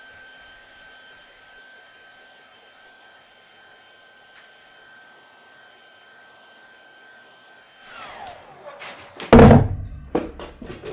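Hand-held hair dryer running steadily with a thin high whine, then switched off near the end, its motor winding down in a falling whine. A loud thump follows, then a few lighter knocks.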